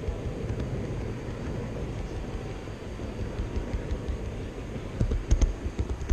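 Model train wheels rolling on the rails, heard as a steady low rumble with irregular knocks, carried through the car to the camera riding on it. A few sharp clicks come about five seconds in as the wheels cross the rail gaps of the turnouts.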